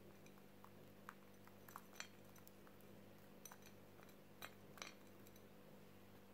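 Faint, scattered light clicks of crushed walnut pieces and crisp kadayif crumbs dropping onto a porcelain plate, about six in all, over a faint steady hum.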